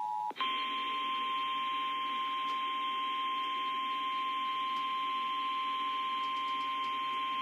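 Emergency alert tones. An Emergency Alert System two-tone attention signal cuts off about a third of a second in. After a brief break, a NOAA Weather Radio 1050 Hz warning alarm tone sounds as one steady, unbroken pitch over radio hiss.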